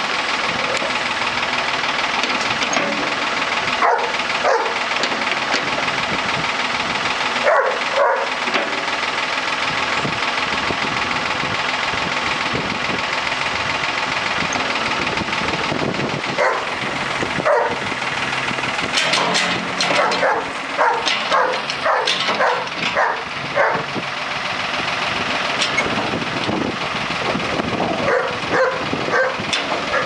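Ford backhoe engine running steadily. Over it a German Shepherd barks in short bursts, with quick runs of several barks a second about two-thirds of the way in and again near the end.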